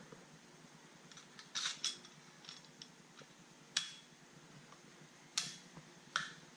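Several sharp clicks and clacks from a Makita XMT03Z cordless multi-tool being handled: two close together about a second and a half in, then single ones near four, five and a half and six seconds, some with a brief ringing.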